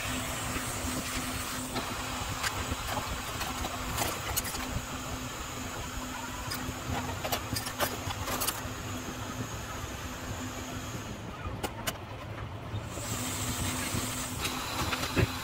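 Hot air rework station blowing a steady hiss of air over a phone's glass back cover to soften its adhesive, with a low fan hum underneath; the hiss thins for a couple of seconds about two-thirds of the way through. A few light clicks from handling the phone.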